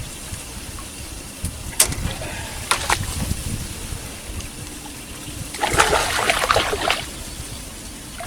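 Water trickling and splashing with a few sharp clicks; a longer burst of splashing about six seconds in.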